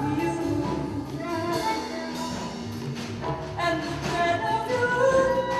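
Live improvised music: scattered drum and cymbal strokes under a sliding, high melodic line.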